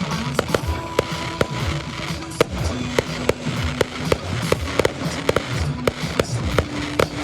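Fireworks going off in rapid succession, sharp bangs and crackles, over music playing from the show's sound system.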